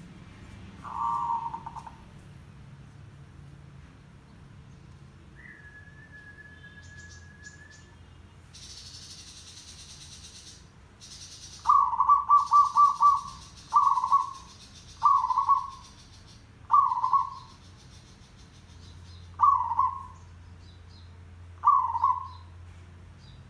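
Zebra dove cooing: a short call about a second in, then a quick rattling run of about six notes, followed by single short coos every one to three seconds.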